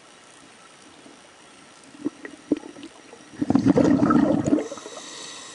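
Water gurgling and splashing for about a second, made of many quick pulses, after a few sharp knocks; the audio then cuts off suddenly.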